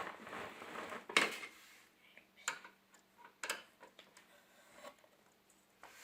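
Metal clicks and scraping from fitting a CPU cooler's spring-loaded mounting screws with a screwdriver: a scrape in the first second ending in a sharp click, then two more clicks about a second apart.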